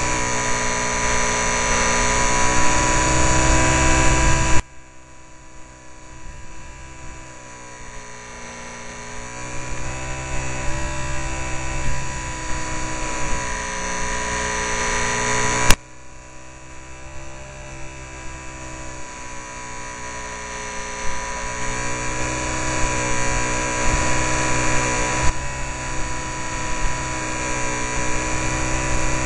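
Small RC airplane's motor and propeller heard from the onboard camera, a pitched whine with wind rush. The sound drops sharply about four and a half seconds in, builds back up, then cuts off again after a sharp click around the middle and builds up once more, as the throttle is pulled back and opened again. A steady thin high tone sits underneath throughout.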